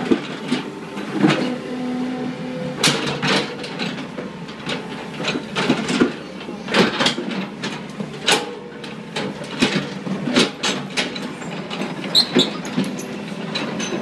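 Tracked excavator's diesel engine running under load, with irregular metal clanks and knocks from the arm and bucket as it works.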